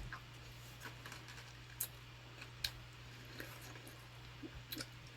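Faint chewing of a crunchy chocolate-covered cookie candy, with a few soft clicks over a low steady hum.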